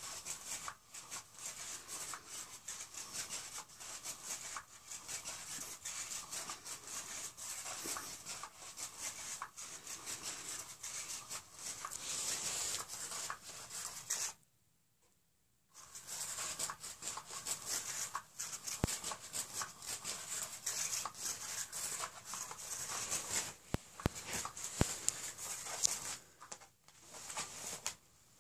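A cat scratching and pawing at a Cat's Meow toy's fabric cover and the carpet: steady rustling and scratching with many small clicks, breaking off for about a second midway.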